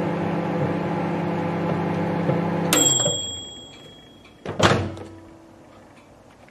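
Microwave oven running with a steady hum that shuts off about two and a half seconds in, with one long high beep marking the end of the cycle. About two seconds later comes a loud clunk, the door being opened.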